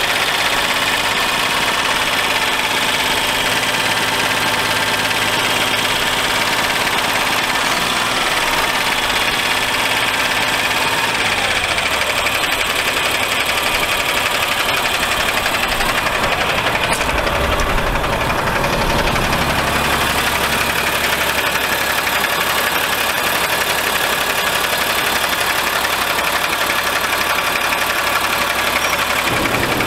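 Caterpillar C9 diesel truck engine idling steadily, heard up close in the engine bay.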